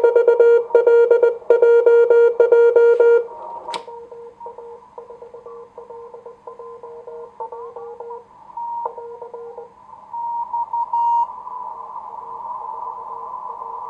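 Morse code (CW) tones from a homebuilt 1Watter QRP transceiver on 40 m: about three seconds of strong keyed code near 500 Hz, a pop, then weaker code at the same pitch. A second station's code sits higher in pitch over receiver hiss, which is interference from a strong station right next to the frequency.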